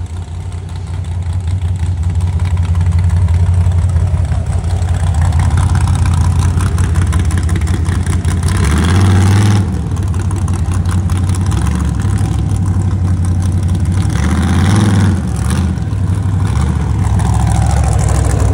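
Rock bouncer buggy's engine running loud and rough, building over the first few seconds, with two hard revs: one a little before the middle and another about two-thirds of the way through.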